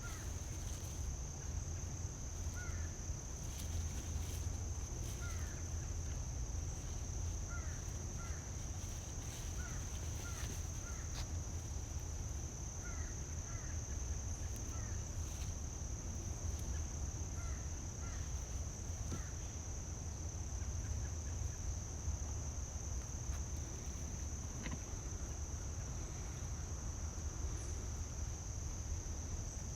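Insects trilling steadily in one unbroken high-pitched drone, with short bird chirps scattered through the first two-thirds, over a steady low rumble.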